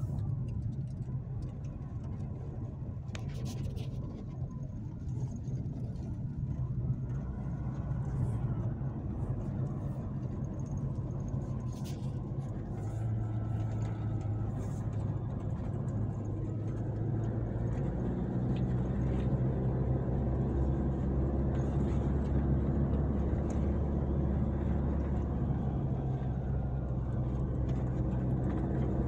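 Engine and road noise heard inside the cabin of a Nissan Navara Calibre-X pickup on the move: a steady low hum that gets somewhat louder and deeper in the second half.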